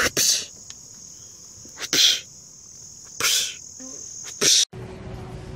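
Steady high trill of crickets, broken by short, loud, rasping bursts about every second and a half. Near the end it cuts off and a low hum takes over.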